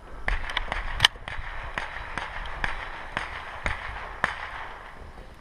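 A string of about a dozen sharp pops, roughly two a second, one louder about a second in and the rest fading toward the end: rapid .22 rimfire gunshots from elsewhere on the range.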